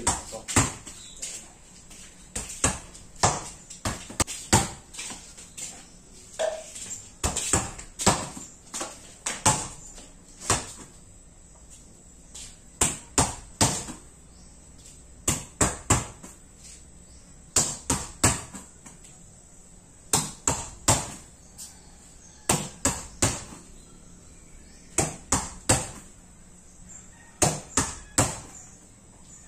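A volleyball smacked by hand and bouncing on a hard floor: clusters of two to four sharp knocks about every two and a half seconds.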